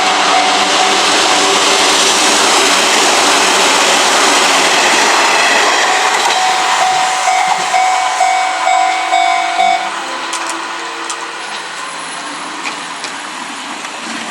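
An Izuhakone Railway Sunzu Line train passing close over a level crossing, its wheels and running gear loud and steady, then fading about ten seconds in as it moves away.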